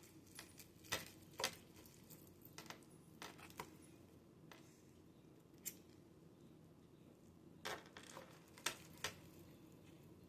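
Cutlery clicking lightly against a plate, a dozen or so faint taps in small clusters, over a low steady room hum.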